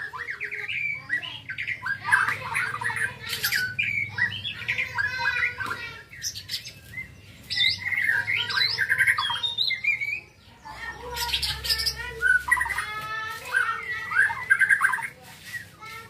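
White-rumped shama singing a fast, varied song: clear whistles and rapid trills mixed with harsh notes, with short breaks about six and ten seconds in.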